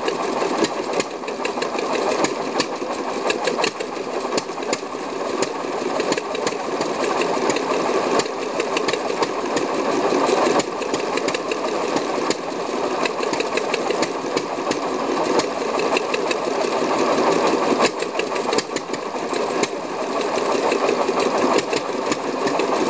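Vintage Deutz stationary engine running steadily, with a rapid, even clatter of knocks.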